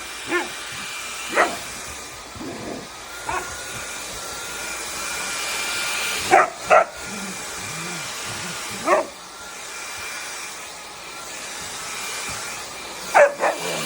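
A dog barks repeatedly, single barks with quick double barks near the middle and near the end, over the steady hum and whine of a running cordless stick vacuum.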